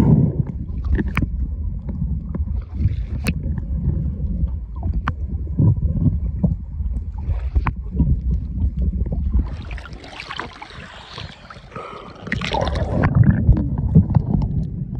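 Water sloshing and rumbling against a camera held at the sea surface, with scattered small clicks and knocks. From about ten seconds in, a hissing rush of water lasts about three seconds before the low sloshing returns.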